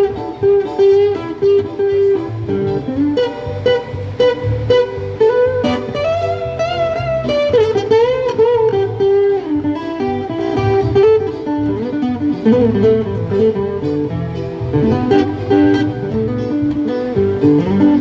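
Steel-string acoustic guitar strummed in a steady rhythm, chords ringing.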